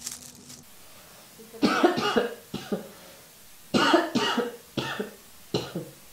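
A person coughing: two fits of coughs about two seconds apart, each trailed by a few shorter single coughs.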